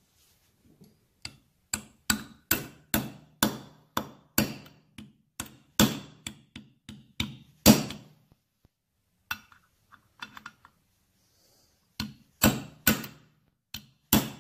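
Ball-peen hammer tapping a socket used as a drift, driving a press-fit oil seal into the aluminium timing cover of a 1971 Triumph Tiger 650 engine. A steady run of sharp metal taps about two a second, the hardest about halfway through, then a pause with a few light taps and another short run near the end.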